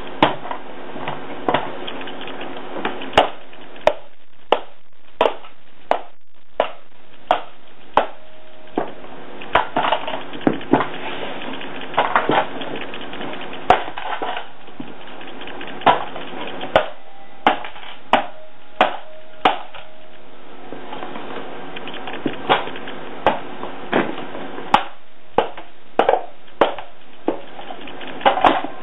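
A moneybox being stomped and kicked under a sandal: a long run of sharp crunching impacts, about one or two a second, with a couple of short pauses.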